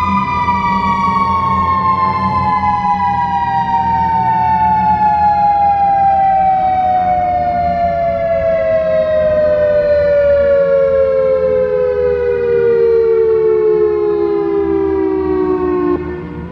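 Federal Signal EOWS 612 electronic outdoor warning siren winding down at the end of its steady alert tone. Two close tones slide slowly and smoothly down together from about 1 kHz for some sixteen seconds, then cut off suddenly just before the end.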